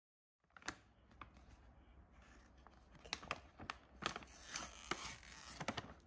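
Plastic treat pouch crinkling and crackling as it is handled, with many sharp clicks; it starts about half a second in.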